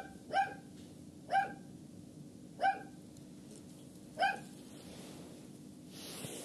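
Domestic cat giving five short meows over about four seconds, followed near the end by a brief rustle.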